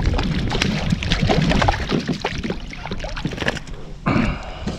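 Water splashing and scattered knocks and clicks around a fishing kayak, with wind rumbling on the microphone.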